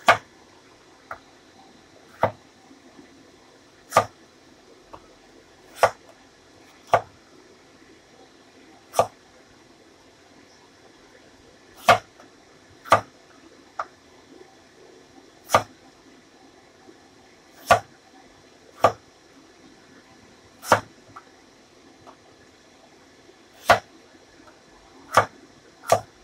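Chinese cleaver slicing through winter melon and knocking on a wooden chopping board: about fifteen sharp knocks at uneven intervals of one to three seconds.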